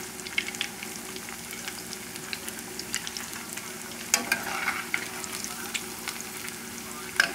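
Battered chicken pieces deep-frying in a pot of hot oil: a steady, busy crackling sizzle, the sign that the oil is at a good frying temperature. About four seconds in, a utensil goes into the pot with a sharp tap and the sizzle briefly grows louder as the pieces are stirred.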